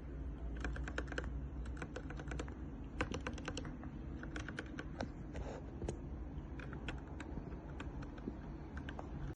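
Typing on a mechanical keyboard fitted with ABS keycaps with silicone cat-paw pads: irregular runs of quick key clicks with short pauses between them, over a steady low hum.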